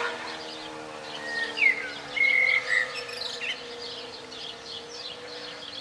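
Birds chirping and whistling, with a sharp rising call about a second and a half in and a held whistled note just after, over the steady, fading tone of an E57 electromechanical civil-defence siren as it runs down at the end of its signal.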